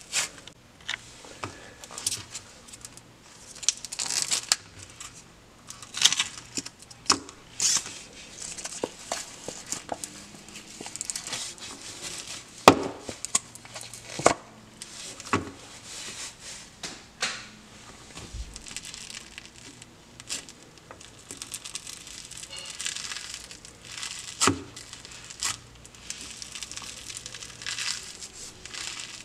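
Crunchy clear-based floam slime packed with microfoam beads being squeezed and worked by hand, giving irregular crackling and crunching, with a louder sharp crack about thirteen seconds in.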